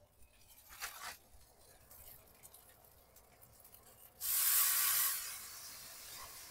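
Water poured into a hot cast iron skillet of turkey burgers: a sudden loud sizzle of steam about four seconds in, easing after a second into a softer steady hiss.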